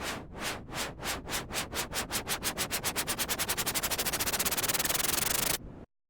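Synthesized white noise chopped into rhythmic pulses to imitate a train chugging, speeding up from about three pulses a second to a fast flutter while growing louder and brighter, then cutting off suddenly near the end.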